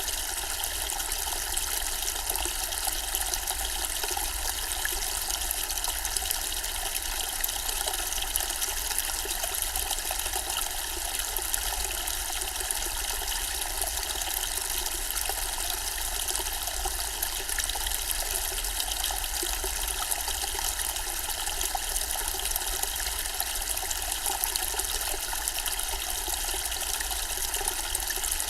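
Zen-style decorative water fountain: water trickling and splashing steadily, without pause or change.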